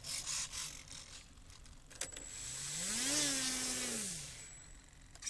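Electric inrunner motor of an RC model Cessna 177, turning a folding propeller, spins up about halfway in, holds for about a second, then winds back down, with a thin high whine from the speed controller over it. A click comes just before the motor starts.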